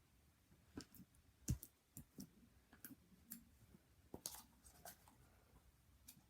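Faint, irregular clicks and taps of handling a plastic slime container and working the gooey slime out of it, with one sharper tap about a second and a half in.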